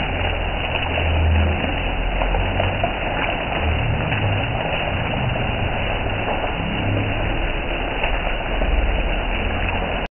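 Hail and rain falling on a wet concrete street: a dense, steady patter of countless small impacts, with an uneven low rumble underneath.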